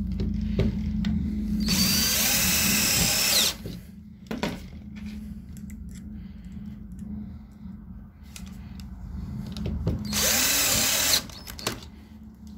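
Cordless drill-driver driving round-head screws through a handle into a thin screen-frame profile: two short runs, one about two seconds in and one near the end.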